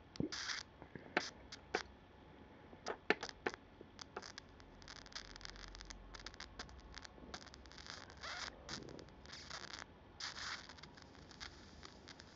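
Small electric arc from a makeshift transformer welder crackling and sizzling at the tip of a hand-held wire, in irregular sharp clicks and short hissing bursts.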